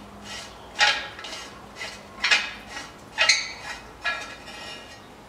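Oxygen sensor being unscrewed by hand from a rusty steel exhaust pipe, with four sharp metallic clinks about a second apart, each ringing briefly.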